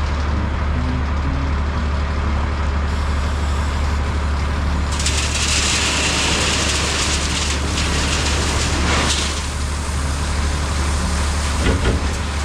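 A vehicle engine runs steadily with a low rumble. About five seconds in, a loud hissing rush starts and lasts about four seconds.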